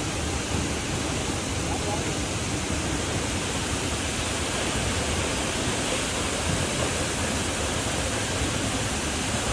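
Steady, even rushing noise of Lakshapana Waterfall's falling water.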